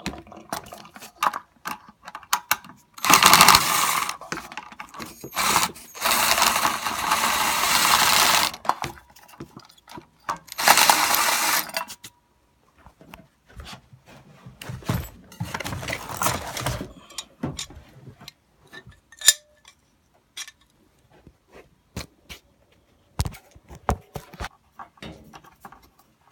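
A power tool run in four bursts of one to two and a half seconds each, with clicks and knocks of tools on the water heater's piping in between.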